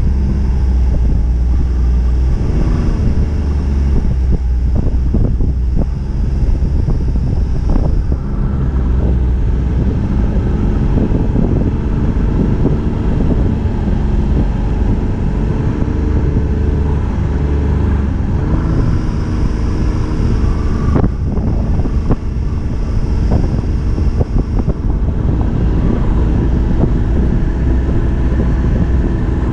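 Snowmobile engine running under way, its pitch rising and falling with the throttle, with wind buffeting the microphone and a few short knocks as the sled rides over the trail.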